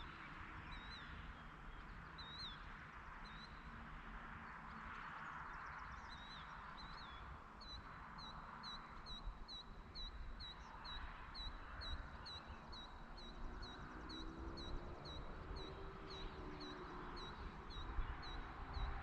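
A small bird calling with short high chirps, irregular at first, then repeating evenly about twice a second, over a steady hiss and low wind rumble of open countryside at dusk. A low drawn-out sound comes in near the end.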